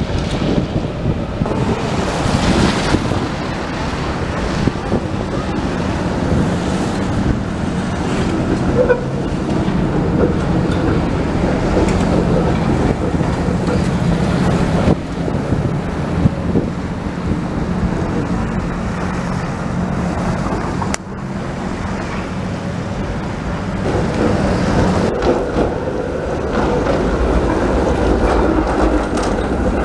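Street traffic on a wet road: a TTC CLRV streetcar running and turning through the intersection on its rails, cars passing on the wet pavement, and wind on the microphone.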